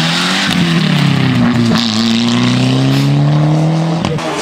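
Ford Escort rally car's four-cylinder engine accelerating hard out of a bend. Its pitch dips briefly on a gear change near the start, then climbs steadily for about three seconds before breaking off near the end.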